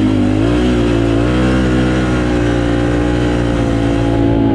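Can-Am Outlander XMR ATV engine running under throttle while riding: its pitch wavers in the first second, then holds steady at cruising speed.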